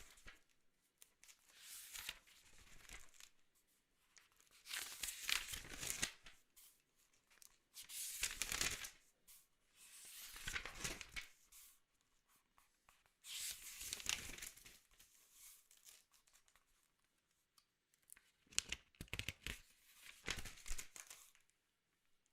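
Paper notebook pages being turned, one swish every two or three seconds, then a denser crackling of paper near the end.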